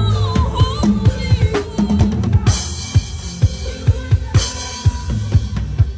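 Acoustic drum kit played in a busy groove: rapid kick and snare strikes, with cymbal crashes about two and a half seconds in and again near four and a half seconds. Sustained pitched notes from another instrument sound underneath.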